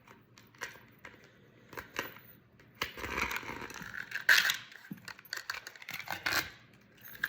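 Handling noise from unpacking a pocket watch from its box: scattered small clicks and a longer scrape about three seconds in, with a sharp click near the middle as the watch is worked free of its latch.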